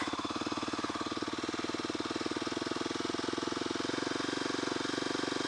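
Kawasaki supermoto motorcycle engine idling with an even, rapid pulse while its idle adjuster is turned up, a stopgap for a snapped throttle cable.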